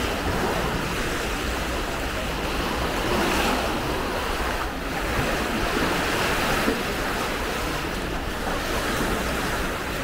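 Baltic Sea surf washing onto the beach: a steady rushing hiss that swells a couple of times, with wind rumbling on the microphone.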